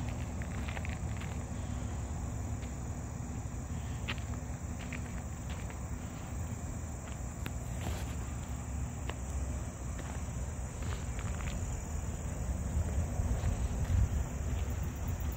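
Steady high-pitched drone of insects over a low outdoor rumble, with scattered light ticks and footsteps.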